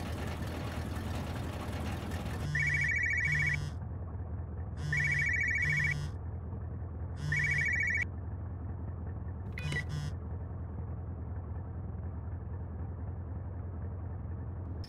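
Mobile phone ringing three times over the steady low hum of a van's engine and road noise, the third ring cut short; a brief double chirp follows about ten seconds in, the phone's new-voicemail alert.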